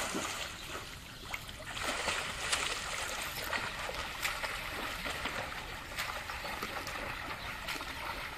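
Swimming-pool water splashing and lapping close to the microphone, stirred by a swimmer's strokes, with many small sharp splashes and drips throughout.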